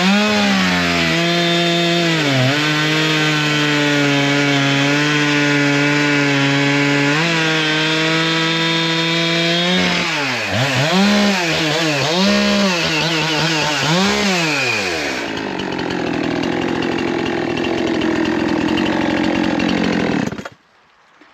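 Two-stroke chainsaw revving up and down, then held at high revs with a couple of brief dips. The throttle is blipped several times, and the sound turns rougher and noisier before cutting off suddenly near the end.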